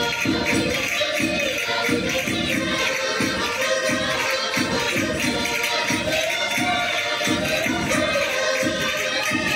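Minho-style Portuguese folk music played live by a rancho folclórico: a group singing together over the band, with a steady drum beat about twice a second and jingling percussion.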